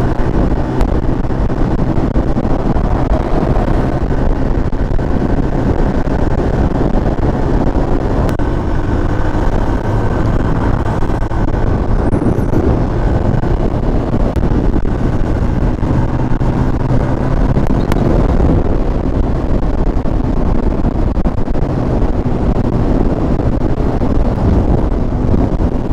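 Yamaha LC135's single-cylinder four-stroke engine running at steady highway cruising speed, mixed with wind rushing over a helmet-mounted microphone.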